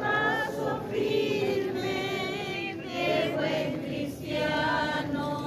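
A group of devotees singing a religious hymn together, the voices rising and falling in sung phrases of a second or so.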